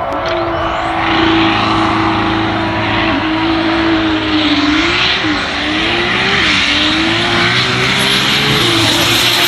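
Drag-racing car engines at the start line, revs held high with a few quick rises and dips, over a dense rushing noise and a faint high whine that climbs slowly.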